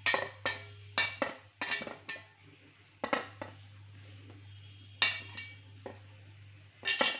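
Hand mixing fish pieces in thick masala in a steel bowl: irregular clinks and knocks against the metal, often in pairs, every second or two, over a faint steady low hum.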